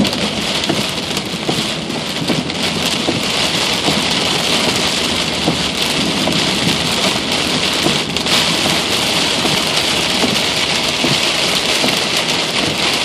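Heavy rain pouring steadily during a thunderstorm, with low rumbles of thunder.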